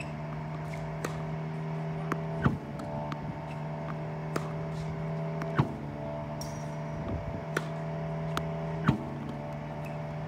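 Slinger Bag tennis ball machine's motor humming steadily, with a sharp pop about every three seconds, three times, as it launches a ball; fainter knocks of balls being struck and bouncing come in between.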